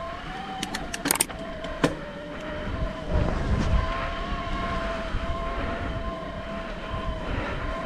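Electric mountain bike's assist motor whining steadily, its pitch wavering slightly, while the bike climbs a trail. A few sharp clacks of the bike jolting over rough ground come about a second in, and a low rumble of tyres and wind on the microphone swells after about three seconds.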